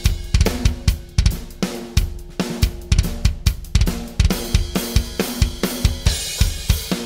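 A drum kit beat played on EZdrummer 2 sampled drum sounds, triggered from a Roland TD-30 electronic kit's pads: steady kick, snare and hi-hat with cymbals, about two hits a second on the loudest strokes.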